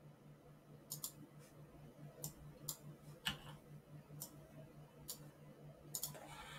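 Faint computer mouse clicks: about nine short, sharp clicks at irregular spacing over a faint low hum.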